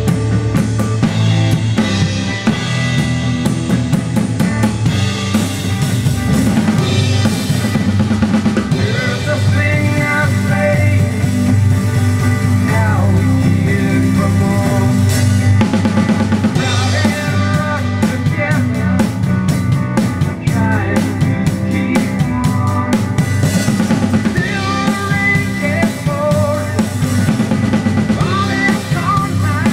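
Acoustic drum kit played with sticks to a steady rock beat on kick drum, snare and cymbals, along with a recorded song whose pitched guitar and voice lines sit over the drums.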